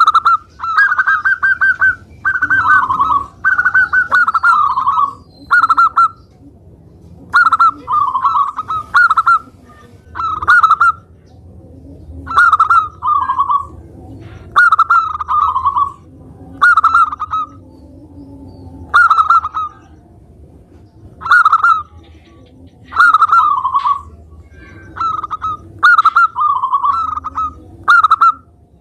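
Zebra dove (local perkutut) singing vigorously: loud phrases of quick, staccato cooing notes, repeated over and over with short pauses between them.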